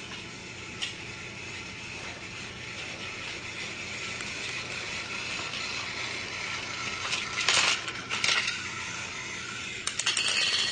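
Small geared mechanism running with a steady whirring rattle that slowly grows louder, with brief louder rattles about seven and a half, eight, and ten seconds in.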